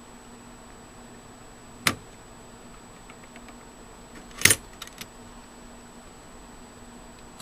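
Two sharp clicks about two and a half seconds apart, the second the loudest and followed by a few small ticks: a CPU being set into its motherboard socket and the socket's retention lever being pressed down and latched.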